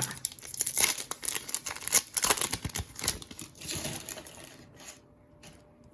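Foil trading-card pack being torn open, its wrapper crinkling and crackling irregularly for about four seconds before dying away.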